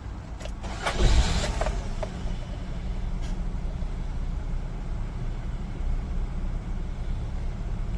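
Steady low rumble of a running engine, with a few sharp knocks about a second in.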